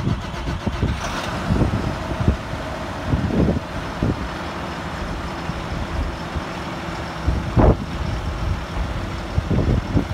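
Deutz-Fahr 6185 TTV tractor's six-cylinder diesel engine running at idle just after a cold start, with a few irregular louder low thumps, the strongest about three-quarters of the way through.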